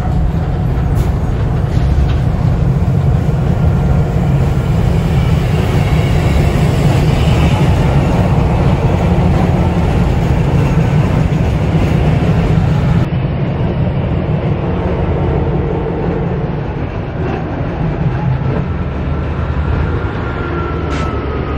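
Work train of flatcars loaded with rail rolling past on the track: a loud, steady low rumble of wheels and cars, with the diesel locomotives, a KLW SE15B and a SEPTA switcher, rumbling by near the end.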